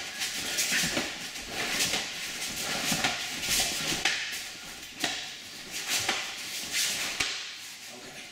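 Forearms knocking against forearms with the swish and snap of karate uniforms, about one strike a second, as two people trade blocks in a forearm-conditioning drill.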